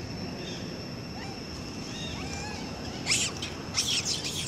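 Long-tailed macaques squeaking faintly, then a monkey giving short shrill screams: one about three seconds in and a quick run of several near the end. A steady high-pitched drone sits underneath.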